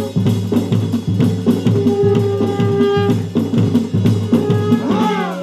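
Dhol drumming in a fast, steady rhythm for a Garhwali jagar dance. A held tone sounds over the beat, and near the end there are falling pitch slides.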